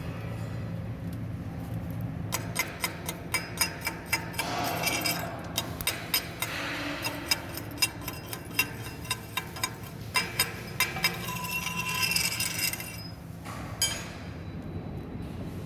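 Irregular sharp metallic clinks and taps, about two a second, over a steady low hum.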